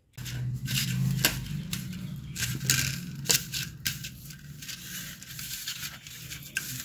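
Fingers squishing and kneading a wet fish masala paste mixed with oil in a steel plate: irregular sticky crackling and squelching, with a few sharp clicks, over a steady low hum.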